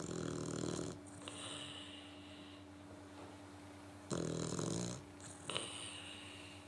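English Setter puppy snoring in its sleep: two loud snores about four seconds apart, each about a second long, each followed by a softer hissing breath.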